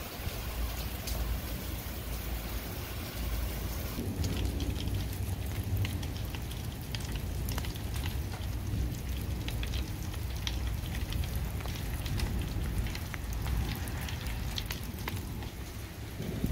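Steady patter of water drops falling on wet, hail-covered ground, with scattered sharp ticks and a low rumble underneath.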